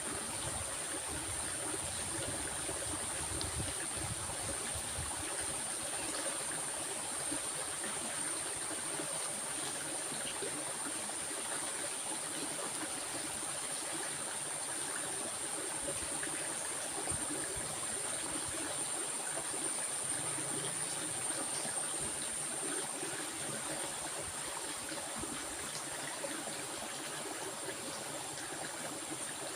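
Stream water flowing steadily, an even rushing babble, with a steady high-pitched hiss on top.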